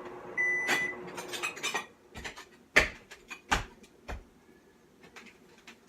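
Microwave oven's end-of-cycle beep sounding once more over its running hum, which stops about two seconds in. Then four sharp knocks of a plate and dishes being handled.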